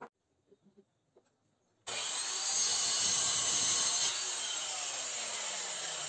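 A power tool working wood, starting abruptly about two seconds in after near silence and then running loud and steady.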